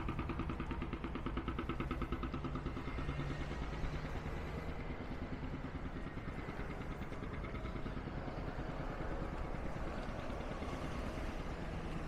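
An engine idling steadily, a low hum with a fast, even pulse.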